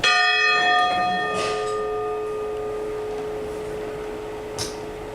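A church bell struck once. The higher tones fade within about two seconds, and a low hum rings on slowly.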